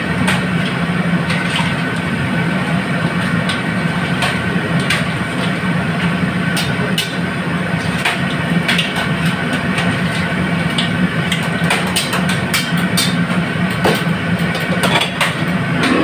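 Wire-mesh strainer ladle scraping and clanking against a large steel pan as fried crabs are stirred and tossed, irregular sharp knocks that come thicker near the end. Underneath is a steady roar from the commercial kitchen stove.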